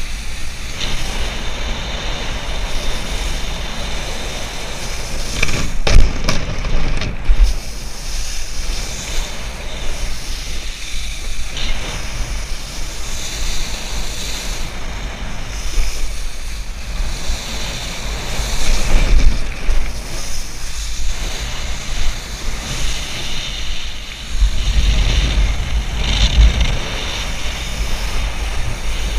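Wind buffeting an action camera's microphone over the hiss and spray of a wakeboard carving across the water behind a cable tow. A couple of sharp knocks about six and seven seconds in, and heavier rumble near the end.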